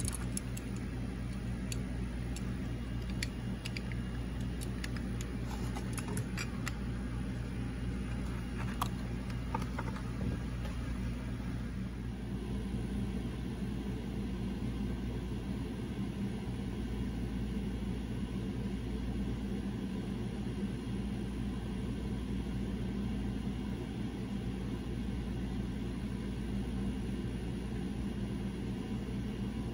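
Light clicks and taps of a small diecast model truck and a clear plastic packaging piece being handled during roughly the first ten seconds, over a steady low mechanical hum.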